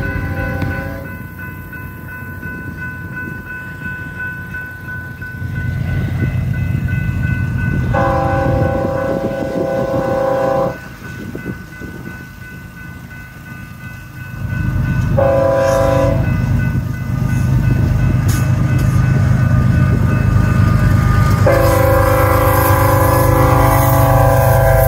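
Diesel locomotive air horn sounding the grade-crossing signal as the train approaches. One blast ends just after the start, a long blast comes about 8 s in, a short one about 15 s in, and another long one from about 21 s in. Beneath the horn, the rumble of the locomotives and wheels grows louder as the train nears.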